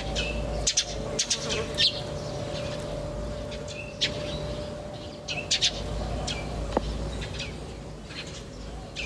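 Small birds chirping: short, sharp high chirps, some in quick runs of several notes, coming every second or so, over a faint steady hum.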